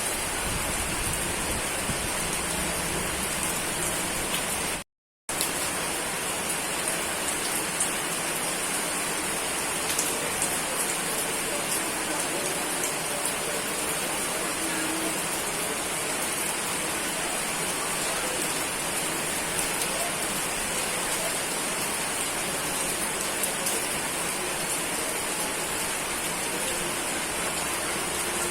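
Steady rain falling, an even hiss with scattered small drop ticks. About five seconds in, the sound cuts out completely for about half a second, then resumes.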